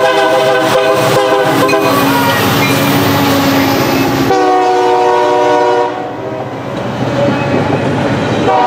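A Union Pacific SD70M locomotive's multi-chime air horn sounds long blasts in a horn show. The horn the railfan takes for a Nathan K5LA holds one chord for about four seconds, shifts and sounds on until about six seconds, drops away briefly, and comes back near the end.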